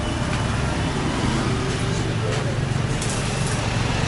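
A motor vehicle engine running steadily close by, a low, even hum with street traffic noise around it.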